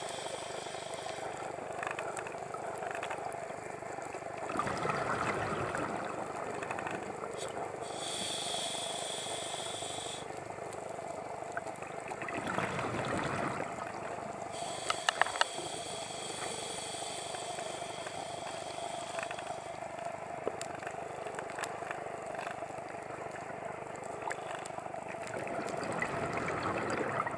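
A scuba diver breathing through a regulator, heard underwater: slow cycles of a long hissing inhale followed by a rush of bubbles on the exhale, over a steady hum. There are a few sharp clicks about midway.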